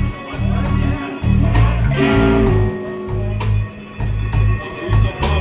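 Band music with guitar, a bass line and drums keeping a steady beat.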